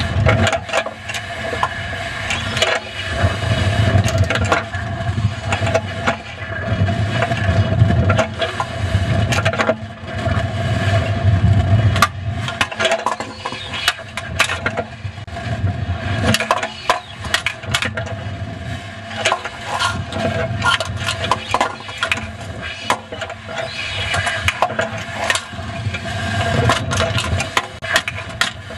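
Wind rushing over a high-power rocket's nose-cone camera, swelling and easing every few seconds, with many sharp rattles and knocks from the nose cone section.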